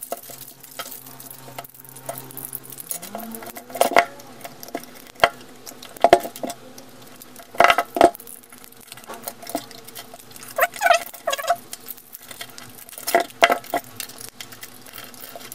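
Sanyo UR18650A 18650 cells and pliers being handled and set down, giving a run of irregular clicks, clinks and knocks, the loudest around four, six and eight seconds in.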